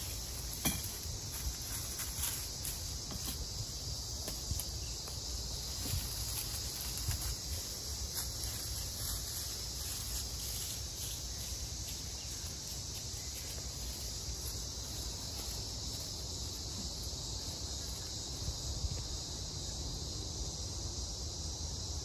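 Steady high chorus of insects in grassland, with a low rumble underneath and a couple of sharp clicks near the start.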